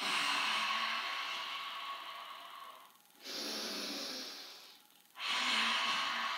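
A woman's loud Pilates breathing through an open mouth: three long breaths, each about two to three seconds, with brief pauses between them.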